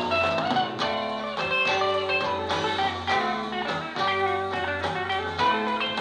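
Band music with guitar and a steady bass line, a live bar-gig recording played back through a home stereo's speakers.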